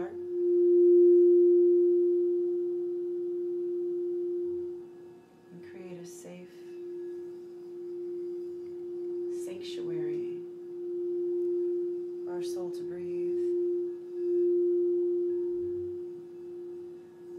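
Quartz crystal singing bowl sounding one steady, pure note, kept ringing with a mallet so that it swells and fades in slow waves.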